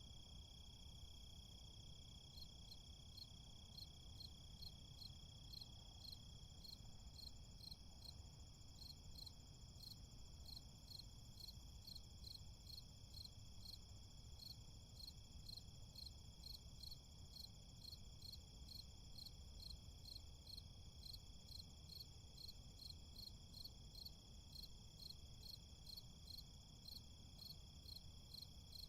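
Crickets chirping faintly in a steady high trill, joined about two seconds in by a regular, evenly spaced pulsing chirp, over a low city rumble.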